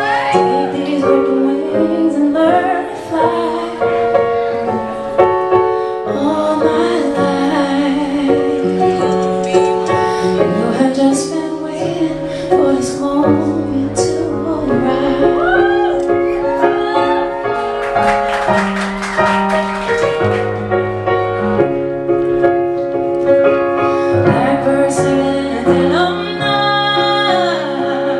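A woman singing live with piano accompaniment, her voice sliding through ornamented runs over held piano chords.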